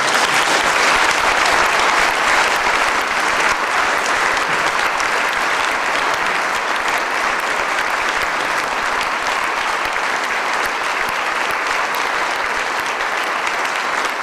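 Audience applauding: a long round of clapping that starts suddenly and stays strong, easing off slightly after the first few seconds.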